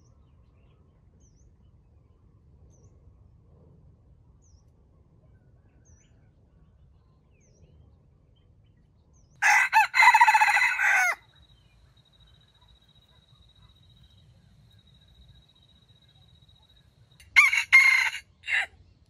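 Red junglefowl rooster crowing: one loud crow about halfway through, then near the end a shorter crow broken into three parts.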